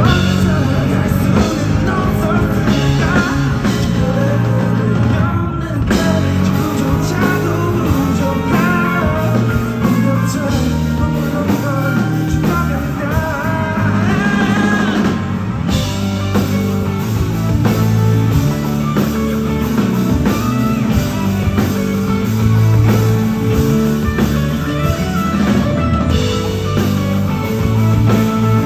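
Pop-rock song playing loud over a sound system, with drums, electric guitar and a sung vocal.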